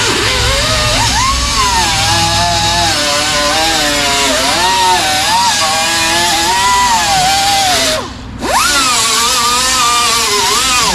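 Electric angle grinder cleaning up metal before welding, its whine wavering up and down as it works. About eight seconds in it is released for a moment, then spins back up, and near the end it winds down.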